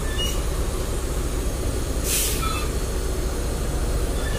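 Diesel engine of a large bus running with a steady low rumble. About two seconds in there is a short burst of hissing air, like the air brakes releasing.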